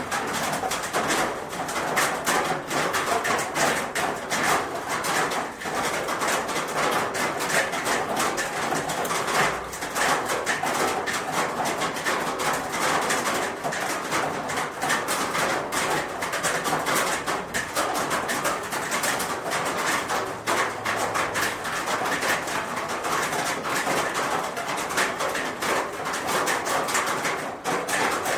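Rain falling on a roof: a dense, steady patter of countless drop impacts that never lets up.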